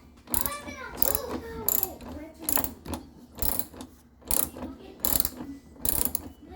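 Washing machine knocking in a steady rhythm, a little faster than once a second, with squeaky creaks between the knocks in the first second or so.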